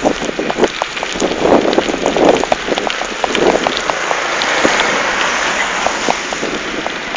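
Wind rushing over the microphone and a bike-mounted camera rattling with many small clicks and knocks as the mountain bike rolls over a paved road. A broader rush swells as an oncoming car passes about four to five seconds in.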